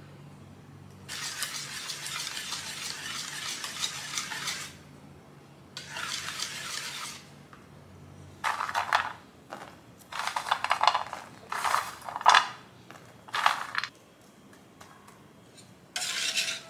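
Wire balloon whisk beating a runny pecan pie filling in a stainless steel bowl, the wires rattling and scraping against the metal. It starts as a steady stretch of whisking, then comes in several short, louder bursts of strokes in the second half.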